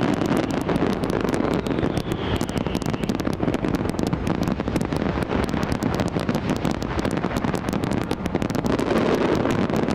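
Large fireworks display at full barrage: many shells bursting in rapid succession, a dense run of bangs and crackling over a low rumble.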